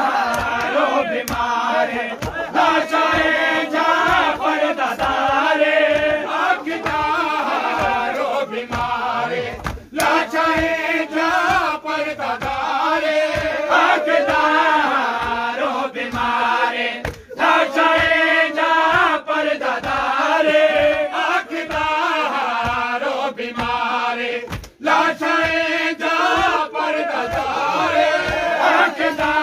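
Noha, a Shia lament, chanted by a male reciter with a crowd of men singing along, pausing briefly between lines. Under it runs a steady beat of low thumps about twice a second, from the mourners' hand matam (chest-beating).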